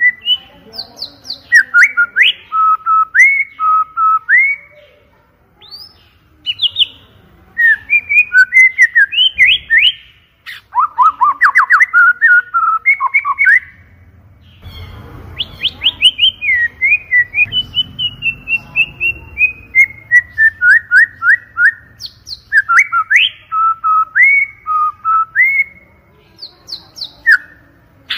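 White-rumped shama (murai batu) singing loudly: rapid phrases of clear whistled notes that sweep up and down, broken by short pauses.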